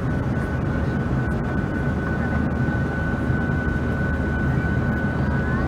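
Steady cabin noise of an airliner climbing after takeoff: a dense, even engine and airflow rumble with a thin, steady high whine over it.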